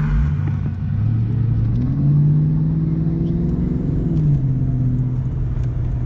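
1994 Ford Mustang GT's 5.0-litre V8 pulling under way: the engine note climbs for about two seconds, drops sharply about four seconds in as it shifts up, then runs on steadily.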